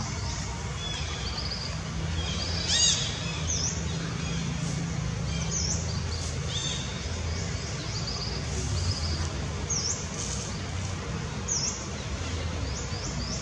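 Birds calling in the trees: many short, high chirps that dip and rise, repeated throughout, with a louder call about three seconds in. A steady low rumble of background noise runs underneath.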